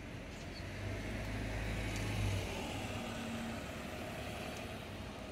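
City bus driving past close by. Its engine gives a low rumble for the first two seconds or so, which then eases off into a steady street hum.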